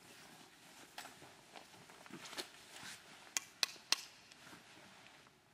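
Quiet room tone with a few faint, sharp clicks and knocks: one about a second in and three close together near the four-second mark.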